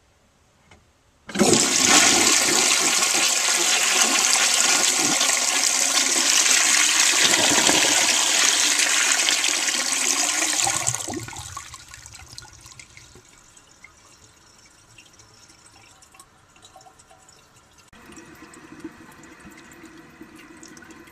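A 1931 Standard Ejecto toilet bowl flushing from its tank. About a second in, a loud rush of water starts suddenly and lasts about ten seconds, then fades to quieter running water as the tank refills, with a steady low hum of the fill valve joining near the end.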